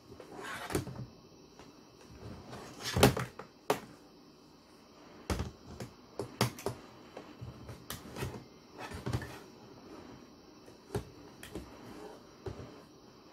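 Hasbro Mega Mighties plastic action figures of Iron Man and Spider-Man being handled and set down on a tabletop: scattered, irregular knocks and clicks, the loudest about three seconds in.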